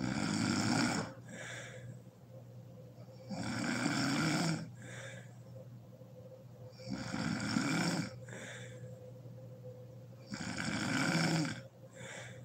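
A sleeping woman snoring loudly. There are four snores, each about a second long and coming roughly every three and a half seconds, and each is followed by a shorter, softer breath.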